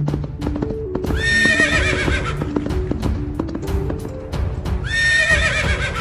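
Music with horse sound effects: hoofbeats clip-clopping and a horse neighing twice, about a second in and again near the end.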